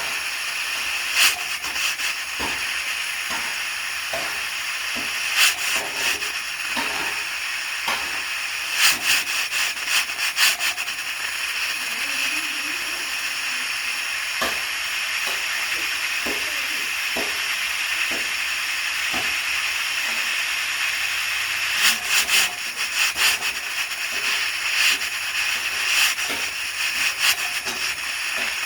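Pressure cooker hissing steadily as steam escapes from its valve, with sharp louder spurts at irregular intervals, several in quick succession about nine seconds in and again about twenty-two seconds in.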